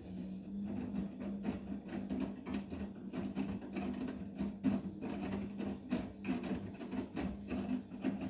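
Vestel front-loading washing machine turning its drum during a 70 °C cotton wash: a steady motor hum with irregular knocks of the laundry tumbling. The motor starts at once and stops abruptly after about eight seconds, one stroke of the drum's back-and-forth wash rhythm.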